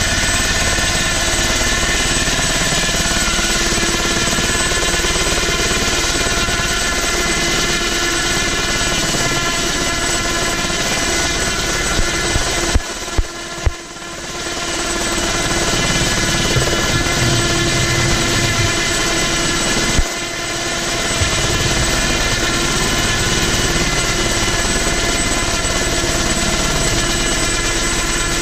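Ultrasport 496 ultralight helicopter running with its main rotor turning as it lifts into a low hover: a loud, steady engine and rotor drone with many even tones. A few sharp clicks and a brief drop in level come a little before halfway, with another short dip about two-thirds through.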